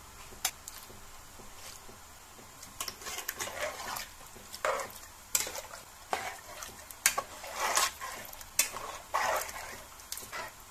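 Metal ladle stirring chicken gravy in an aluminium pressure cooker pot: the liquid sloshes, with irregular sharp clinks and scrapes of the ladle against the pot, starting about three seconds in after a single click near the start.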